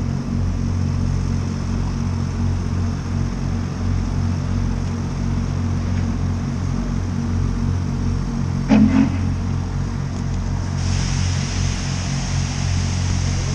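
Norfolk & Western Class J 611 steam locomotive standing under steam, with a steady low rumble. About nine seconds in there is a brief loud tone, and about two seconds later a steady hiss of escaping steam starts and carries on.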